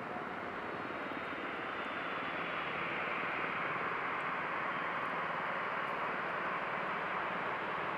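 Boeing 737-800's CFM56 turbofan engines running at low taxi power: a steady jet rush with a faint high whine that slowly falls in pitch. It swells slightly in the middle.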